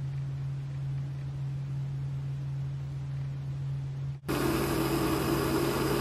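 A steady low hum, then about four seconds in, a sudden change to a butane micro torch burning with a steady hiss, its flame heating a water heater thermostat's bimetallic disc.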